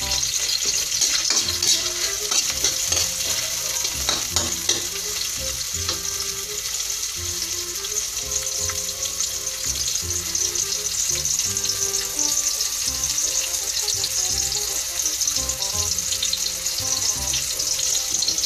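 Sliced onions sizzling steadily in hot oil in an aluminium wok, with a metal spatula scraping and tapping against the pan as they are stirred.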